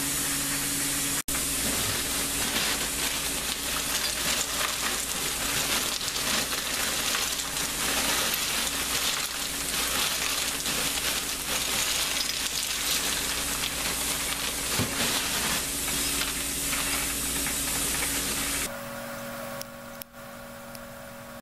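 Steady sizzling hiss from a homemade kitchen still heating herbs and water on the stove, over a low steady hum. About a second in it cuts out for an instant, and near the end it drops to a quieter hiss.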